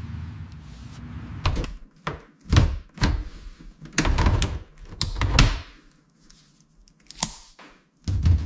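A run of heavy thuds and knocks, roughly one a second, irregularly spaced, with a quiet spell about six seconds in before two more knocks.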